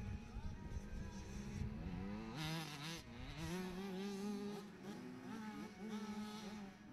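Small motocross bike engine with a high buzz, revving up and dropping back several times as the rider accelerates and shifts on the dirt track.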